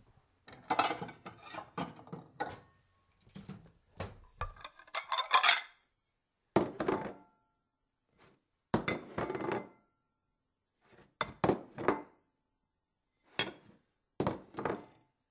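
Small stainless-steel toy pots, pans and utensils clinking and clanging against each other as they are handled and knocked on their hanging rack. The clatter comes in irregular bursts separated by short pauses, some hits ringing briefly.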